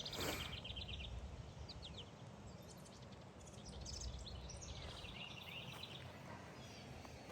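Birds chirping and trilling, with a quick high trill in the first second and another run of chirps about halfway through, over a low steady rush of outdoor noise.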